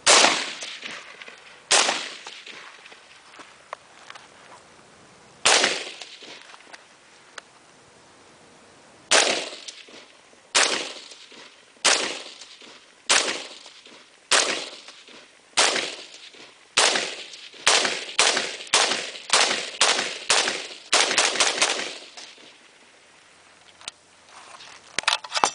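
AR-15 rifle shots fired one at a time, each a sharp, loud crack with a ringing tail. The first few come several seconds apart; they speed up to about two shots a second in a quick string near the middle, and a few fainter shots follow near the end.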